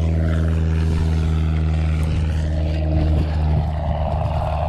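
A motor's steady, low engine hum, its higher overtones fading over the first couple of seconds, with a few light knocks about three seconds in.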